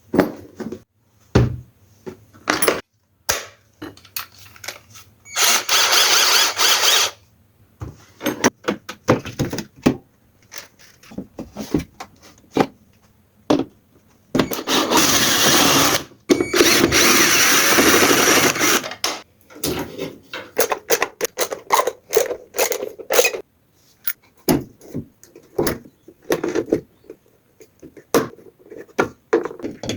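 Power drill running in bursts, one of about a second and a half and one of about five seconds, among many short clicks and knocks of screws and metal parts being handled, as a top-loading washing machine is taken apart.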